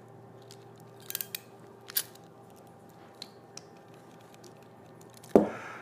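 Crimping tool closing on an RJ45 plug to crimp it onto an Ethernet cable. A quick cluster of clicks comes a little over a second in, then a sharper snap at about two seconds, followed by a couple of faint ticks.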